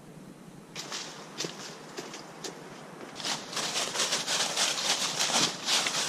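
Footsteps crunching through dry fallen leaves on a trail: a few scattered steps from about a second in, then steady, louder crunching from about three seconds in.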